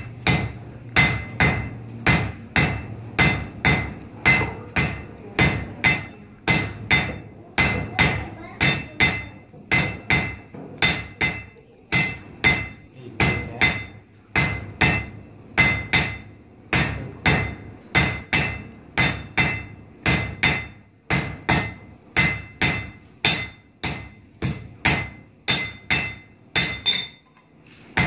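Blacksmith's hammer striking hot iron on an anvil in a steady rhythm of about two blows a second, each blow with a ringing note. The hammering breaks off briefly near the end.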